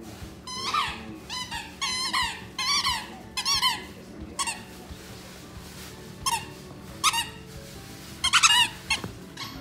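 Squeaker inside a purple fabric dog toy squeaking as a border collie chews on it. There is a quick run of short squeaks with a wavering pitch in the first four seconds or so, then a few scattered ones and a brief cluster near the end.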